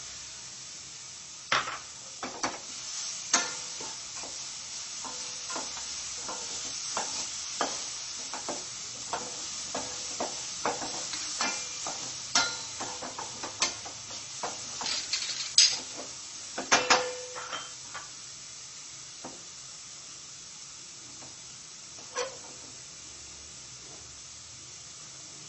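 Wooden spatula scraping and knocking against a stainless steel pan as chopped tomatoes are stirred into browned onions cooked without oil, over a steady sizzle. The stirring stops about three quarters of the way through, leaving the sizzle alone.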